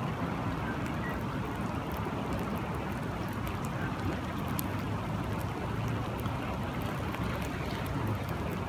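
Steady rain with flowing water, a constant low rushing noise with scattered faint ticks of drops.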